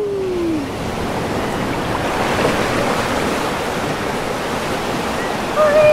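Ocean waves washing up on the shore: a steady rush of surf that swells slightly about two seconds in.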